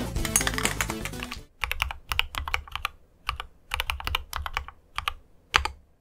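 Background music for about the first second and a half, then typing on a mechanical keyboard: quick runs of keystrokes separated by short pauses.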